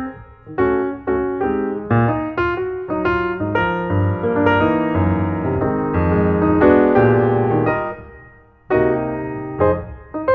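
Background piano music: a slow piece of single notes and chords, each note fading after it is struck, with a brief lull about eight seconds in before the playing resumes.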